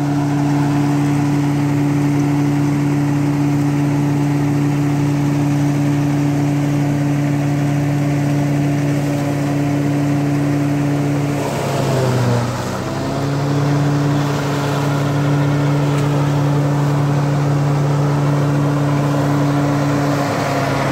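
Sonalika 60 RX tractor's diesel engine running steadily at high speed, driving a forage chopper. A little past halfway its pitch sags for a second or two as the chopper takes a load, then recovers.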